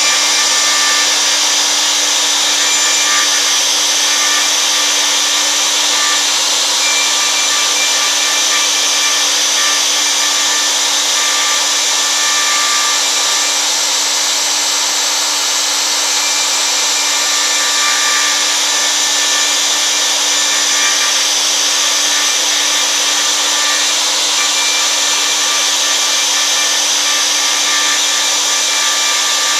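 CNC router spindle running at high speed while a 1/8-inch round nose bit carves into an oak board: a loud, steady whine and hiss of the motor and cutting, without letup.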